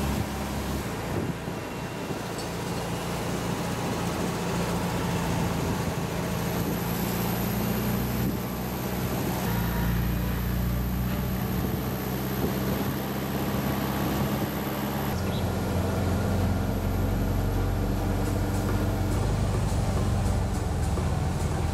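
Old air-cooled Volkswagen Beetle flat-four engines running as the cars drive along at a steady speed, with road and wind noise. The engine note changes abruptly a few times.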